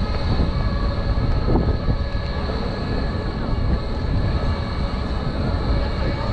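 A rail vehicle running close by: a steady low rumble with faint, steady high whining tones over it.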